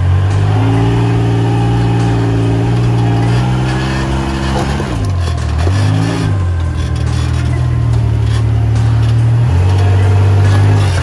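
Rock-crawler buggy engine working under load on a rock climb, holding steady revs. About halfway through, the revs drop and climb back up twice in quick swoops, then settle again.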